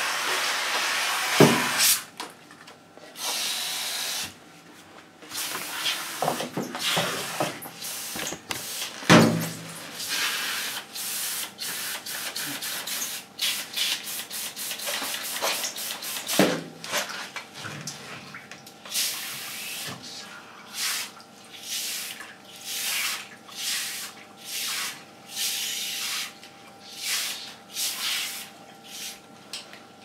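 Water spraying in short hissing bursts, coming about once a second in the second half, with a couple of loud knocks, one early and one about nine seconds in.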